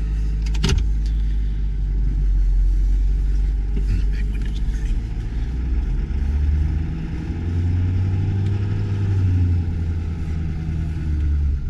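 Ford Super Duty truck's engine heard from inside the cab while driving slowly: a steady low hum that rises in pitch about seven seconds in and eases off again near the end.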